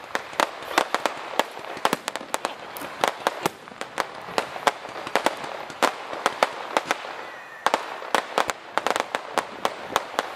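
Aerial fireworks going off: a dense, irregular run of sharp cracks and pops, several a second.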